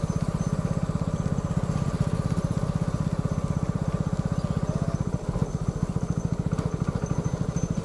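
Several motorcycle engines running at low speed close by, a steady fast even putter.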